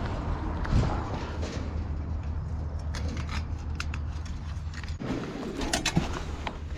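Scattered clicks and light metallic ticks from steel rebar and tie wire being handled and tied, over a steady low machine hum.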